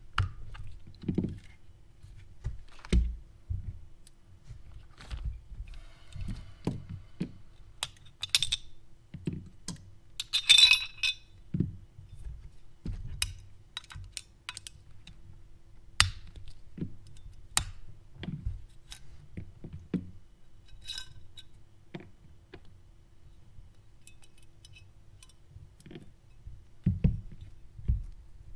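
Small steel parts of a Glock pistol slide being handled and taken apart by hand: scattered clicks, taps and metallic clinks, with a louder jangly clatter about ten seconds in and a few dull thumps on the work mat.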